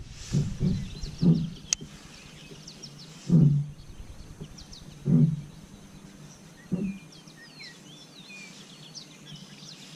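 Birds chirping and calling over a river's background noise, the calls growing busier in the second half. Half a dozen low dull thumps come at irregular gaps of one to two seconds, with one sharp click a couple of seconds in.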